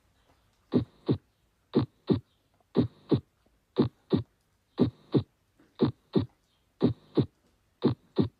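Recorded heartbeat: a steady lub-dub, the two heart sounds about a third of a second apart, repeating about once a second for eight beats.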